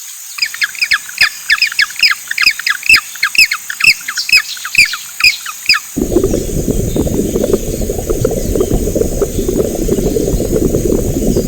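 An animal's rapid run of short, high, downward-sliding squawking calls, about four a second, stopping about six seconds in; a steady, low, rough noise then takes over.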